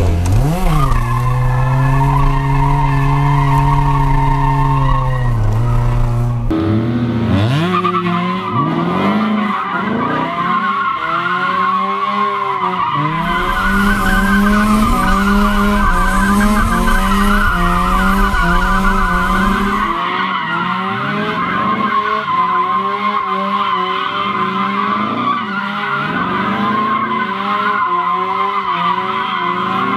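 Mazda RX-7's two-rotor rotary engine, heard from inside the car, holding revs for a few seconds and then revving up and down over and over while the tires squeal through a drift. About twenty seconds in, the low drone inside the car drops away, and the squealing and revving carry on.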